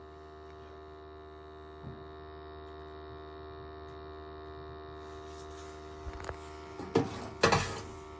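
Steady electrical hum of running boiler equipment, several tones held together. About five seconds in a faint hiss joins it, and a few short knocks and clunks follow near the end.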